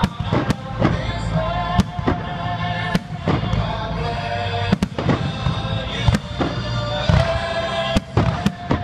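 Fireworks shells bursting in an aerial display, sharp bangs at irregular intervals of about one or two a second, with music playing underneath.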